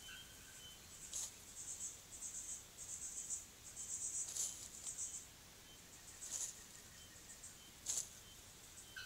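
An insect chirping in a rapid, pulsing high-pitched trill through the first half, with shorter bursts later. A few sharp rustles of dry leaf litter come from a rufous-capped motmot flicking leaves aside with its bill while foraging; the loudest is near the end.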